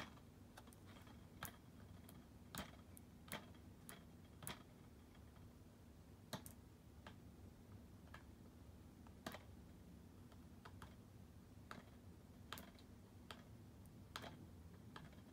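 Faint, irregular clicks and taps of fingers and fingernails picking at the stuck security seal strip on a plastic DVD case.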